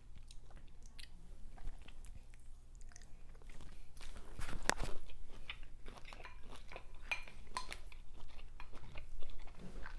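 Close-miked chewing and eating sounds from a seafood meal: wet smacks and small clicks, with one louder, sharp crack about five seconds in.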